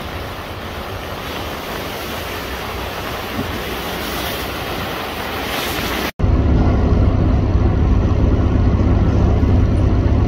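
Rushing, churning water with wind buffeting the microphone, alongside a container ship's stern where its propeller wash boils up. About six seconds in, this cuts abruptly to a louder, steady, low engine drone with a hum: a small boat's engine running close by.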